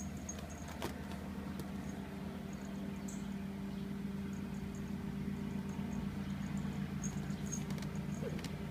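A puppy sniffing and pawing at a cushion, making faint scratching and small scattered ticks, over a steady low hum.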